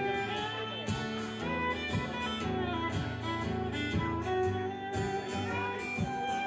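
Music: guitar over a steady beat.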